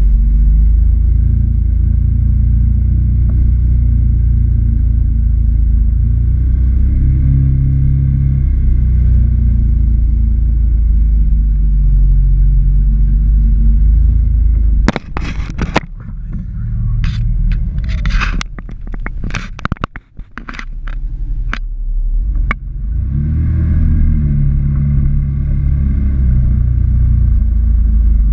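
Can-Am Maverick X3 Turbo engine running low and steady at trail pace. About halfway through, a quick run of sharp snaps and scrapes lasts several seconds as branches and brush drag across the vehicle, and the engine note drops away meanwhile before it picks up again.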